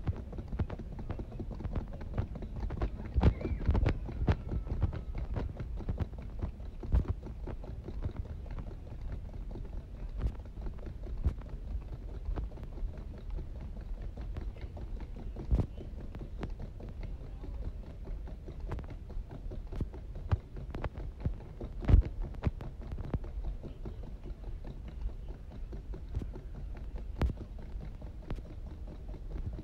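Footsteps on a hard tile floor, an uneven run of sharp clicks over a steady low rumble, with one louder knock about three quarters of the way through.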